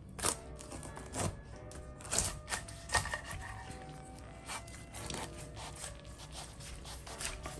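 Chef's knife cutting through a whole pineapple's tough rind onto a wooden cutting board: several sharp crunching cuts and knocks at irregular intervals. Soft background music plays underneath.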